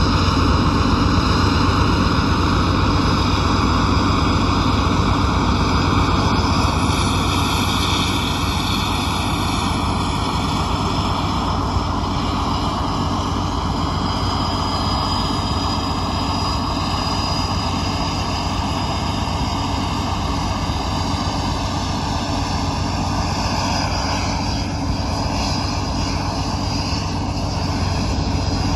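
Airbus A319 jet airliner's turbines running during pushback: a steady high whine over a low hum. Some of the whining tones shift in pitch a little near the end.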